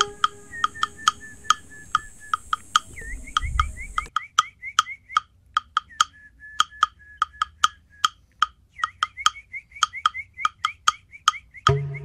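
Soundtrack music: a wood-block-like percussion beat knocking evenly about four times a second, under short high notes with small slides in pitch. Sustained low tones come back in near the end.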